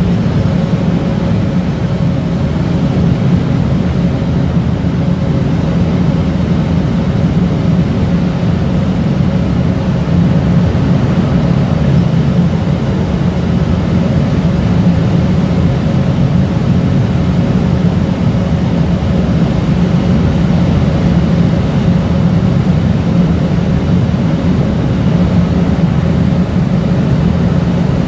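Steady low drone of a ship's engines and deck machinery, unchanging throughout, with a faint steady hum above it.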